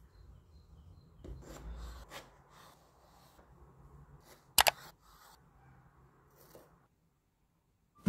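Small kitchen knife cutting raw potato slices on a wooden cutting board: faint cutting and handling with a few light taps, and a sharp double knock about four and a half seconds in. It goes nearly silent for the last second.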